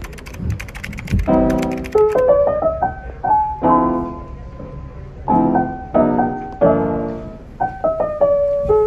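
Background music: a piano playing chords and short melodic phrases. A quick run of clicks comes in the first second.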